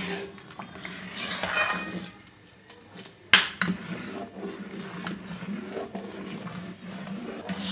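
Metal spoon stirring and scraping in a steel pot of thickening kheer, with one sharp clink of the spoon against the pot a little over three seconds in. A steady low hum runs underneath.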